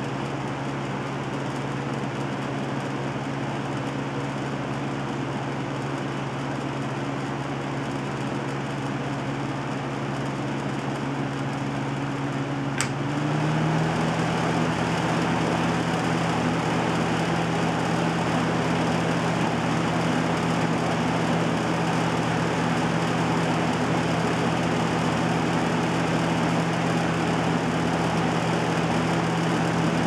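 1994 Air King by Lasko 9733 20-inch box fan running, a steady motor hum over a rush of air. About 13 seconds in there is a click, and the fan then runs faster: its hum steps up in pitch and it gets louder, as when it is switched to a higher speed.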